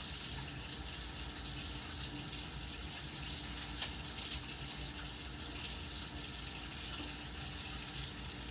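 Steady rush of water running, as from a kitchen tap, with one short click about four seconds in.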